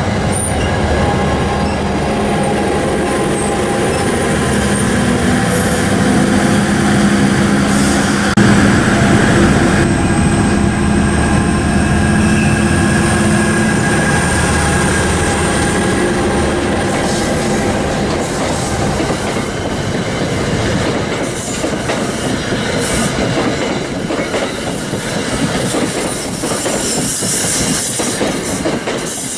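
NJ Transit passenger train passing close by: a steady locomotive engine hum in the first half, then the rattle and clicking of the passenger cars' wheels over the rails as the cars go past.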